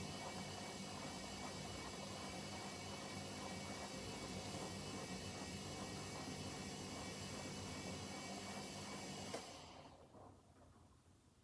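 Hoover H-Wash 300 washing machine running with a steady hum and whine; about nine seconds in there is a click and the machine's sound dies away within a second.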